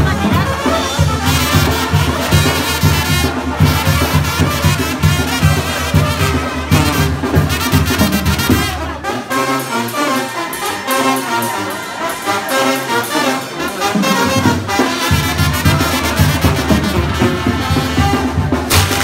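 Brass band music with trumpets and trombones over a steady, pulsing bass line; the low bass drops out for several seconds in the middle and comes back.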